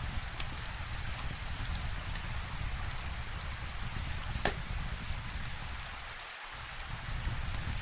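Steady rain falling, with scattered small crackles from a wood fire and one louder pop about halfway through.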